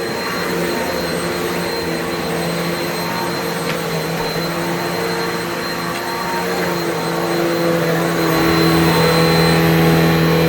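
Upright vacuum cleaner running steadily, a motor drone with a thin high whine over it, the pitch of its middle tones shifting as it is worked over the floor; it grows a little louder near the end.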